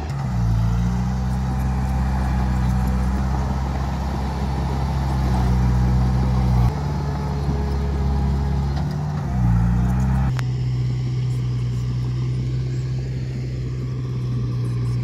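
Diesel engine of a Caterpillar E200B hydraulic excavator running under load while it digs itself out of deep mud. The engine note sags briefly and recovers just after the start and again about nine seconds in, and the sound turns duller from about ten seconds in.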